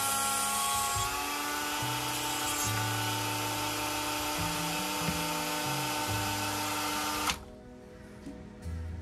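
Flexible-shaft rotary tool running at high speed with a steady whine, grinding a toy car's small metal axle held in pliers. It stops suddenly about seven seconds in.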